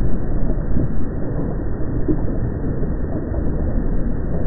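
Steady low rumbling noise from a field recording at the Furnas volcano in the Azores, with a few faint irregular pops.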